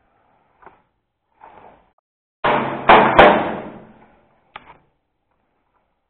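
A sudden loud clatter of knocks and bangs very close by, with two sharp hits about a third of a second apart that ring off and die away within a second, followed a moment later by a single short click.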